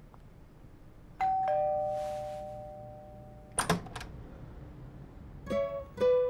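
Two-tone doorbell chime, a higher ding then a lower dong, both ringing out and fading over about two seconds. A couple of sharp clicks follow as the front door is opened, and a plucked-string jingle starts near the end.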